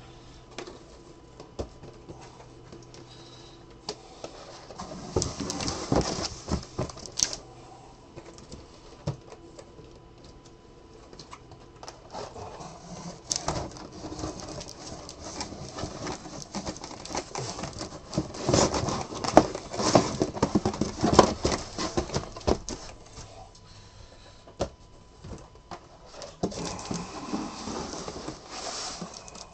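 Cardboard trading-card boxes being lifted off a stack and packed away into a case: scattered light knocks, scrapes and rustles in bursts, busiest about two-thirds of the way through.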